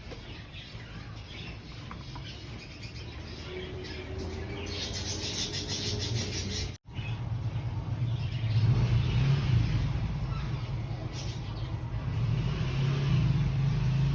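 Low steady rumble of a motor vehicle, with birds chirping; the sound drops out for an instant about seven seconds in, and the rumble is louder after that.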